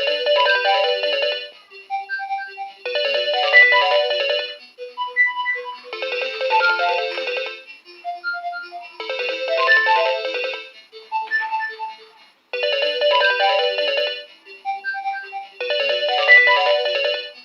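Nokia 2300 ringtone playing through the phone's speaker: a synthesized tune starts abruptly, and a busy chord-like phrase alternates with a sparser run of single notes, the pattern repeating about every three seconds.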